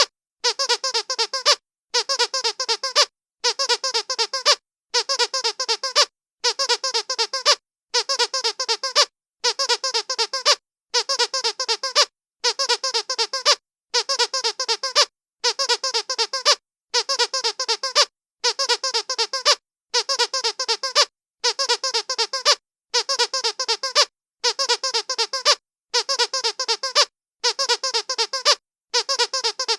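Dog squeaky toy being squeezed in quick runs of several high squeaks. Each run lasts about a second, with a short pause between, repeating evenly about every second and a half.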